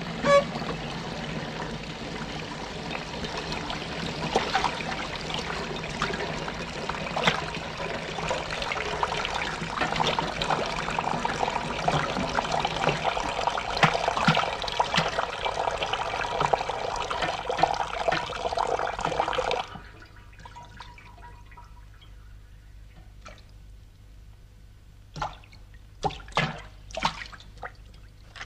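Water dripping and trickling into metal pails, cans and other catch vessels set out under a leaking roof: a dense patter of drips that cuts off suddenly about two-thirds of the way through, leaving only a few scattered clicks.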